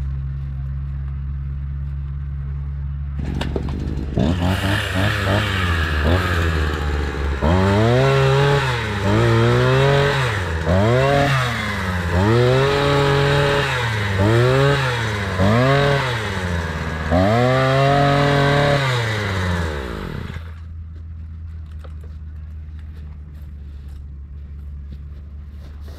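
Small engine of a pole pruner idling, then revved up and down in quick swells about once a second while cutting. It drops back to a steady idle near the end.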